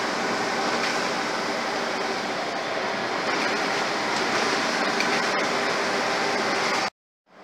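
Scania OmniCity single-deck bus heard from inside the cabin on the move: a steady diesel engine drone and road noise with interior fittings rattling, typical of this worn, rattly bus. Near the end the sound cuts off abruptly into silence.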